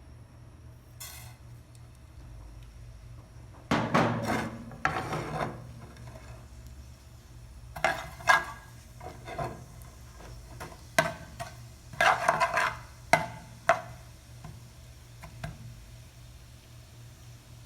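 Kitchen utensils scraping and knocking, in three short bursts of activity.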